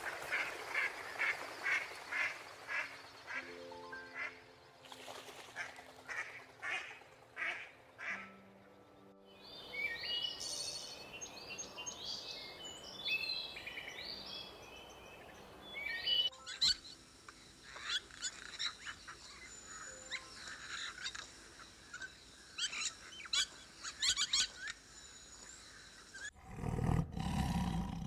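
Ruddy shelducks giving repeated honking calls, about three a second, for the first nine seconds over soft background music. Then come high bird chirps and whistles. A tiger's roar begins near the end.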